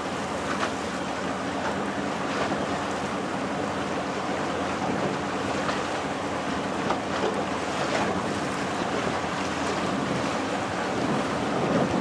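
A small boat's motor running steadily under the rush of water past the hull, with wind buffeting the microphone.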